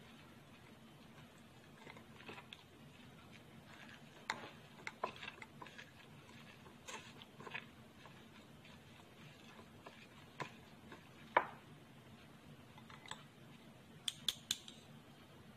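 Metal spoon pressing and scraping grated ginger, shallot and garlic against a stainless mesh strainer to squeeze out the juice, heard as faint, scattered clicks and scrapes over a low steady hum. The sharpest click comes about eleven seconds in, and a quick cluster of clicks comes near the end.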